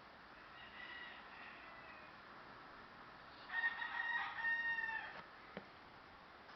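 A drawn-out, pitched animal call made of several segments: a faint one early, then a louder one lasting about a second and a half near the middle, followed by a short click.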